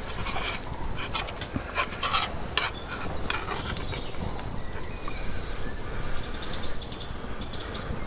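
Metal utensils clinking and scraping against stainless steel camp cookware, with a cluster of sharp clinks about two seconds in.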